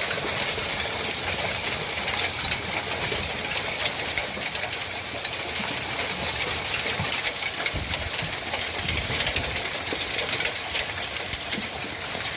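Hail falling hard, a dense, steady clatter of countless small impacts.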